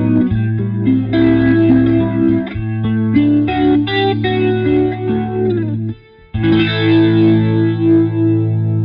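Electric guitar played through an Electro-Harmonix Lester K rotary-speaker pedal on its slow rotor speed with the drive turned up, giving a slowly swirling Leslie sound with light overdrive. Notes and double-stops run over a held low note, the playing breaks off briefly about six seconds in, then a chord rings out.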